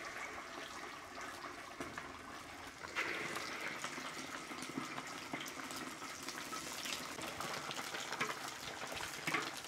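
Large pork meatballs deep-frying in a wok of medium-hot oil: a steady bubbling sizzle with fine crackles, which gets louder about three seconds in as more meatballs go into the oil.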